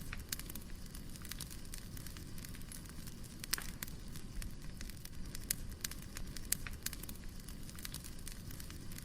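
Wood fire burning: a steady low rumble with irregular crackles and sharp pops of the burning logs.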